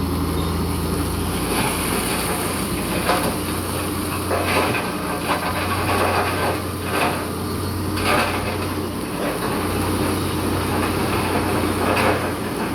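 Bulldozer's diesel engine running steadily under load, with irregular metallic clanks and scrapes from its tracks and blade working over rock.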